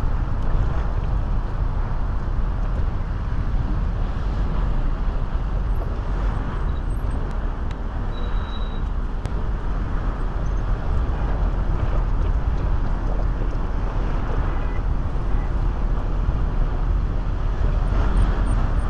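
Continuous city traffic noise: an even rumble of passing cars, strongest in the low end, with no single event standing out.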